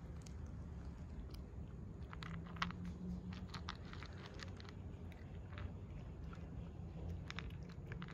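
Cat eating dry kibble, chewing with quick, crisp crunches that begin about two seconds in.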